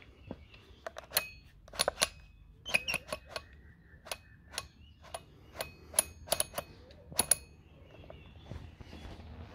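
The weight-selection dial of a 40 kg adjustable dumbbell being turned by hand, clicking through its weight settings. It makes a run of sharp clicks at uneven intervals that stops about seven seconds in.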